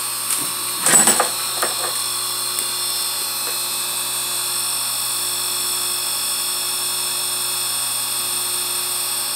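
Electric chainsaw-chain sharpener's motor running steadily, a constant whine and hum with its grinding wheel not cutting. There is a brief knock about a second in.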